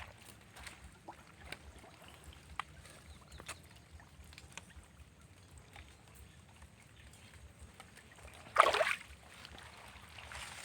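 Water stirring in shallow swamp water: faint sloshing and small ticks, then one louder splash near the end.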